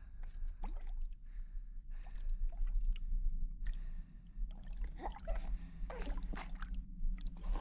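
Underwater film sound design: a steady low drone under scattered short wet gurgles and squelches.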